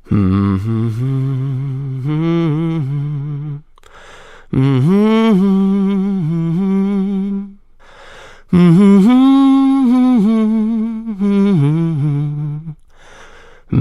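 A man humming a wordless tune with his lips closed, in three drawn-out phrases broken by short pauses.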